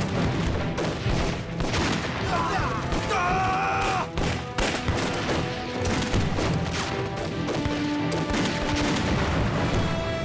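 Battle gunfire: a dense, irregular fusillade of rifle shots, with dramatic film music underneath.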